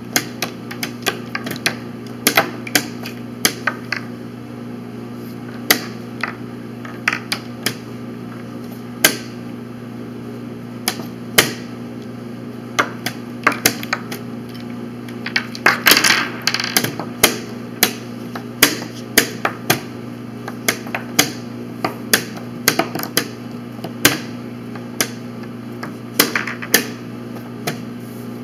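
Plastic chess pieces knocked down on a roll-up vinyl board and a digital chess clock's buttons slapped in fast back-and-forth play. It makes many sharp clicks and knocks, often several a second, with a dense flurry about halfway through.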